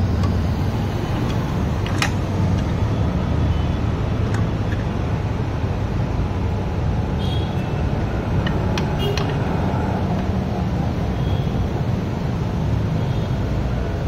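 Steady low mechanical rumble in the background, with a few sharp metallic clinks of hand tools against the scooter's transmission cover.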